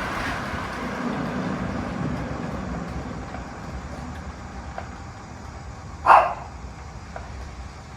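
Ventisilva wall fan's running noise dropping away and fading steadily, as when it is switched off and spins down. A dog barks once about six seconds in.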